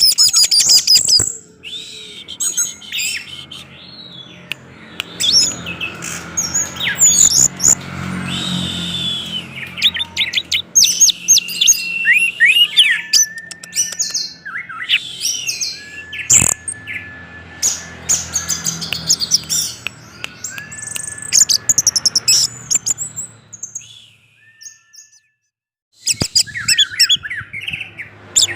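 Orange-headed thrush singing a rapid, varied song of whistles, trills and chirps, with a short break near the end.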